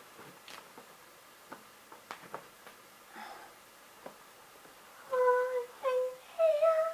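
Faint clicks and rustles of handling, then a child humming a few short, steady held notes, starting about five seconds in.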